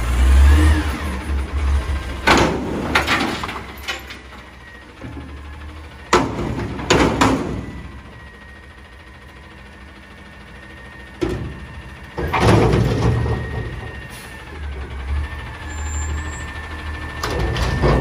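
Front-loader garbage truck dumping a steel dumpster over its cab: the engine revs up to drive the hydraulics while the container is shaken, giving a string of loud metal bangs. The engine revs again from about twelve seconds in as the arms lower the dumpster, which lands with a bang near the end, with a thin steady whine underneath through the second half.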